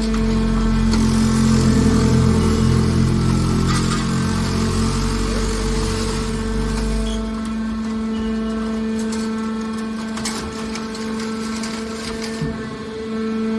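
Scrap aluminum hydraulic baler running: a steady hum from its hydraulic power unit, with a deeper rumble for about the first seven seconds that then drops away, and a few sharp metallic knocks after the middle.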